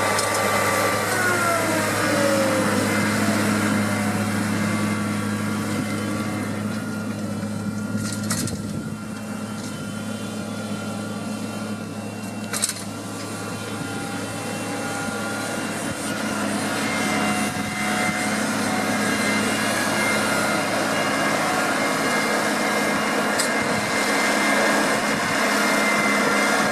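New Holland T7040 tractor's six-cylinder diesel engine running steadily while pulling a seed drill. Its pitch falls in the first two seconds, and it grows fainter through the middle before getting louder again toward the end. A single sharp click comes about halfway through.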